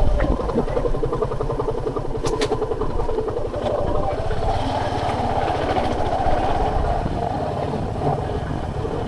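Suzuki Gixxer SF 250's single-cylinder engine running steadily at low speed as the motorcycle is ridden slowly over a rough dirt track.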